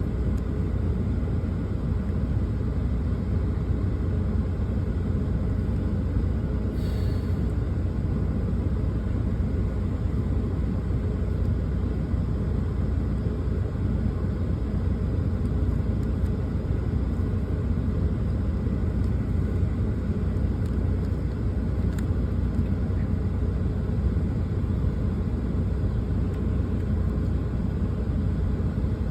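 A truck's engine running, heard from inside the cab as a steady low rumble.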